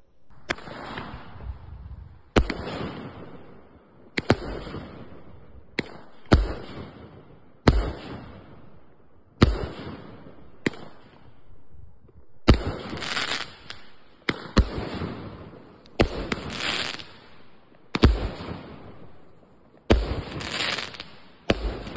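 Gemstone Fireworks 'What The? 25' 25-shot barrage cake firing: a sharp bang every one and a half to two seconds, each followed by a second or so of crackle as the shot bursts into stars.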